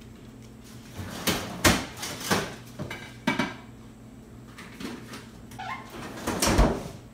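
Knocks and clatter of a dish and containers being shifted in a pull-out kitchen freezer drawer, ending with a loud thump as the drawer is shut about six and a half seconds in.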